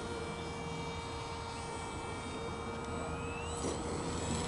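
Electric motor and propeller of a scratch-built depron RC parkjet in flight, a steady whine with several pitches at once; about three seconds in, one of the tones rises.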